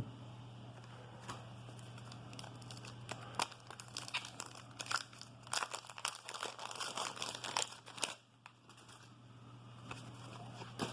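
Wax-paper baseball card pack being torn open and crinkled. A dense run of sharp crackles lasts about five seconds in the middle, then it goes quiet.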